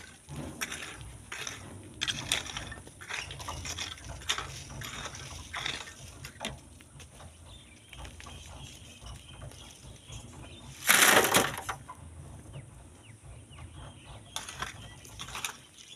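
Sand and stones being scraped and crunched at a sand-mining cliff, in short irregular strokes. About eleven seconds in there is one louder rushing burst of noise lasting under a second. A faint low rumble runs underneath.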